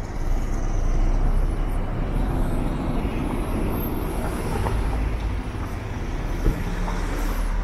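Road traffic close by: cars moving slowly past, a steady engine and tyre rumble, with one short knock near the end.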